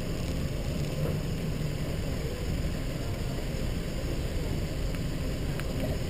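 Steady low rumble of a car idling, picked up by a camera mounted on the car's hood.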